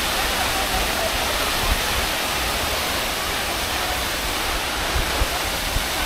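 Jeongbang Waterfall's falling water rushing, a steady dense wash of noise with a low rumble underneath.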